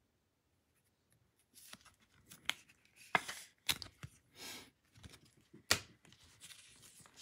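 Trading cards being slid into stiff plastic top-loader holders and handled on a table: a run of sharp plastic clicks and short scraping rustles, starting about a second and a half in.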